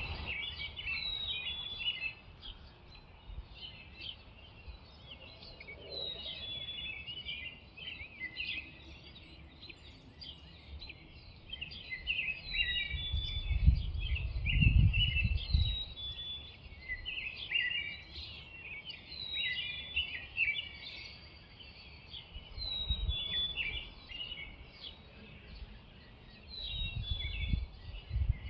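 Robins singing: a steady stream of short, varied high notes and phrases. A few low rumbles come through, the loudest about halfway.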